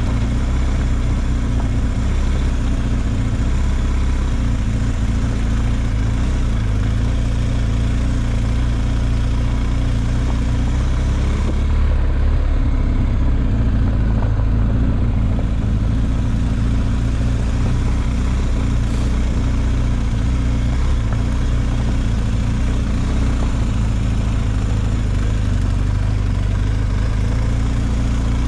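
A vehicle engine running steadily, a low drone that barely changes in pitch.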